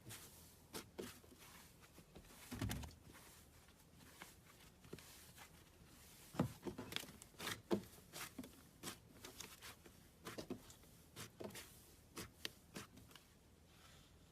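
A series of faint, irregular clicks and crackles, with a soft rustle a little over two seconds in and the clicks coming more often in the second half.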